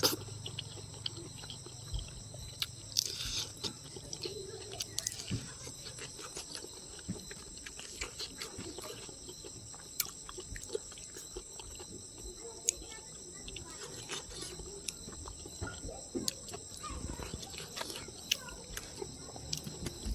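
Close-up eating sounds of a person chewing fish curry, with many scattered small clicks and mouth noises.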